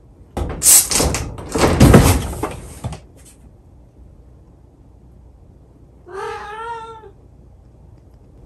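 A cat scrambling with its claws against a wooden wall and onto a cardboard box: loud scraping and rustling for about two and a half seconds. Then a single meow about six seconds in.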